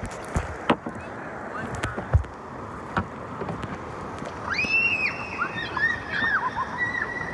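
Steady rush of river water around a raft, with a few sharp knocks in the first three seconds. From about four and a half seconds in, a run of short, high calls or squeaks that rise and fall, repeated several times.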